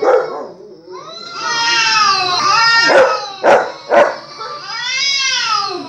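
A dog howling and whining in long, high, rising-and-falling cries, with three short sharp barks about half a second apart around the middle.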